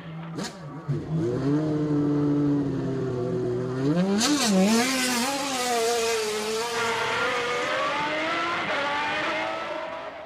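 Maserati MC12 GT1's 6.0-litre naturally aspirated V12 running at a steady pitch, then revving sharply with quick rises and falls about four seconds in, dropping back and climbing steadily in pitch under acceleration before fading near the end.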